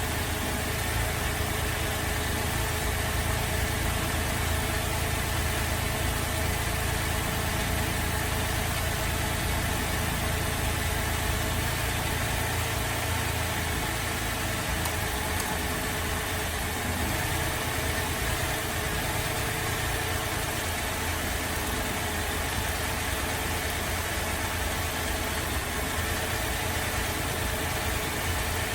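Holden Alloytec V6 idling roughly with a misfire. Its low note shifts twice partway through, as a coil is being disconnected one at a time to find the bad cylinder.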